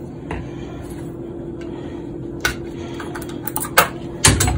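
Clicks and knocks of a glass sauce jar and its plastic lid being handled and set down on a stone countertop. The taps are scattered at first, then come in a quick cluster, with the sharpest knocks near the end, over a steady low hum.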